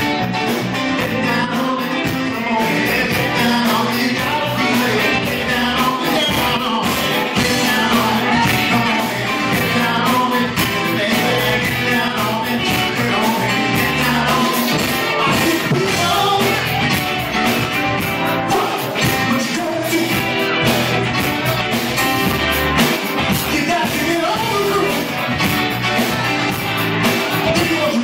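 Live rock band playing a cover song: a man singing into a microphone over electric guitar, bass guitar, drums and keyboards, with a steady drum beat.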